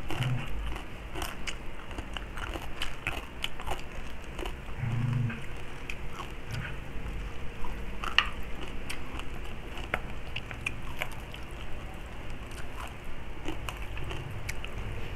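Close-up eating sounds: chewing and biting crispy deep-fried pork leg (crispy pata), with scattered crunches and wet mouth clicks as the skin and meat are torn off by hand and eaten. A short low hum comes about five seconds in.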